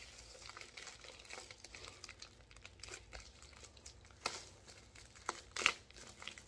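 Padded plastic mailer crinkling and crackling as it is poked and torn open down its side with a pen tip. A few sharper crackles come past the middle.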